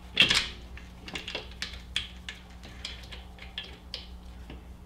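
Irregular light metallic clicks and taps, several a second, from alternator mounting bolts and hand tools as the bolts are started into the alternator bracket. The loudest click comes about a quarter second in.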